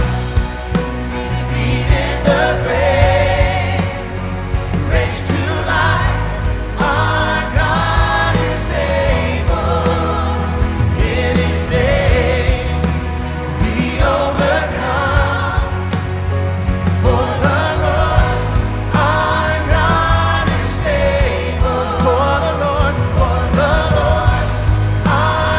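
Christian song sung with instrumental backing: sung melody lines with vibrato over a steady bass.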